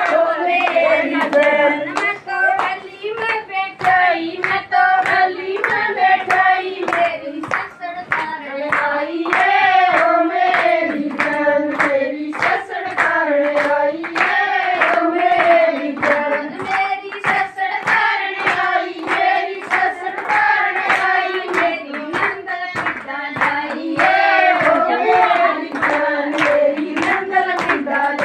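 A group of women singing a song together to steady, rhythmic hand-clapping, with no instruments.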